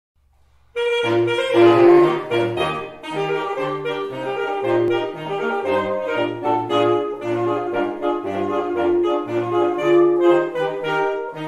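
Saxophone quartet of two altos, tenor and baritone, multitracked by one player, playing a traditional-style tune in four-part harmony, with the baritone moving in a low bass line under the chords. The music starts about a second in, after silence.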